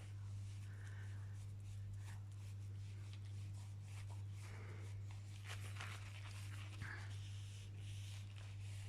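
Faint rubbing of a damp cloth being wiped over a plastic wall socket, with a few soft clicks, over a steady low hum.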